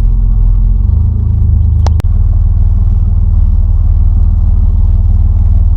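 Dodge Dakota V6 pickup engine running at low speed, a steady low rumble heard from inside the cab. The note shifts slightly about a second in, and there is a single sharp click about two seconds in.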